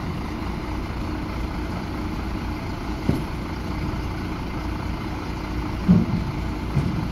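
Heavy diesel engine of the recovery vehicles running steadily at low revs, with a couple of brief thumps about three and six seconds in.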